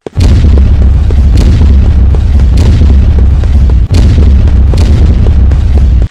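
Extremely loud, heavily bass-boosted and clipped audio: a continuous booming distorted blast in which no words can be made out. It dips for a moment about four seconds in and cuts off abruptly at the end.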